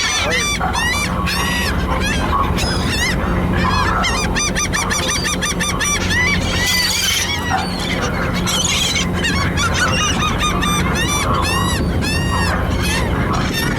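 A flock of gulls calling around a ferry, many short arched cries overlapping without a break, over a steady low hum from the ferry.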